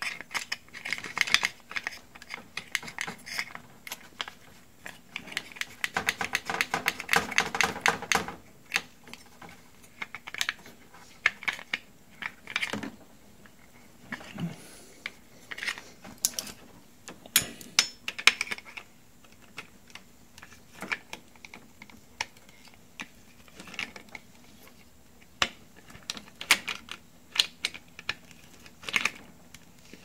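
Quick clicks and light rattles of plastic and metal being handled: a refrigerator water inlet valve assembly and its sheet-metal bracket turned over and worked by hand. There is a dense run of clicking about six to eight seconds in, then scattered single clicks.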